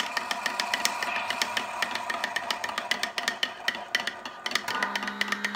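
A metal spoon clinking rapidly against the inside of a ceramic coffee mug as it is stirred, several strikes a second, over a steady hum.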